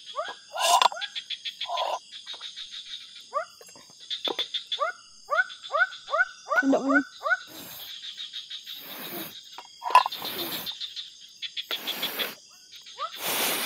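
Night chorus of tropical forest frogs giving repeated short rising chirps, over a steady high trilling and buzzing of insects. Several brief rustling noises break in, the loudest about ten seconds in.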